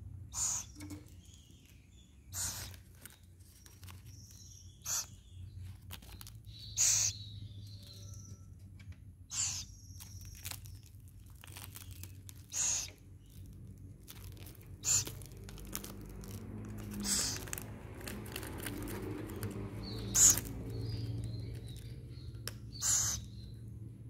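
Owlet chick giving short, high-pitched hissy calls, about ten of them spaced two to three seconds apart, over a faint steady low hum.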